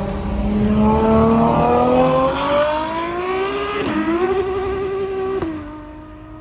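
Ferrari engine and exhaust at full throttle, the pitch climbing steadily through the revs. After about four seconds it dips sharply at an upshift and climbs again. Near the end it drops to a steady lower note as the throttle is lifted.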